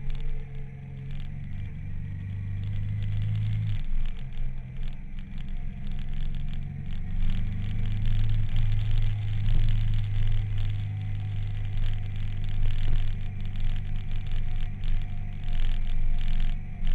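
Motorcycle engine running at steady revs while riding downhill, with wind rushing and buffeting over the mounted camera's microphone. The engine note changes about four seconds in and again about eight and a half seconds in.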